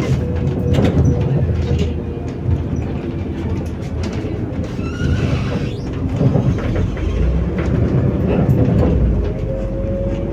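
Ride inside a MAZ-105 articulated city bus on the move: the diesel engine and drivetrain run with a low rumble and a steady whine that rises in pitch near the end as the bus picks up speed, over frequent rattles and knocks from the cabin.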